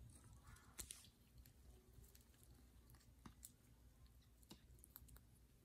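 Near silence, with a few faint, scattered clicks and taps.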